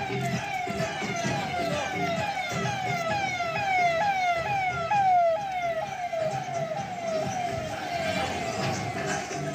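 Emergency vehicle siren passing close by: a rapid falling wail repeated about two and a half times a second, loudest about halfway through.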